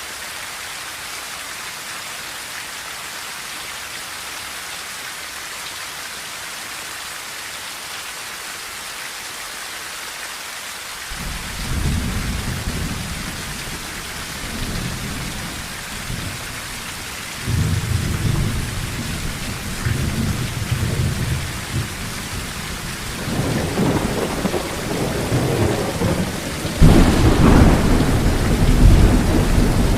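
Steady rain falling on a tin roof, with thunder rolling in about a third of the way through: several low rumbles that come and go and build, the loudest and fullest peal near the end.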